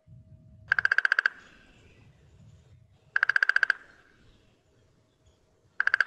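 Downy woodpecker drumming: three short, even rolls of rapid beak strikes on wood, each lasting just over half a second, the last near the end.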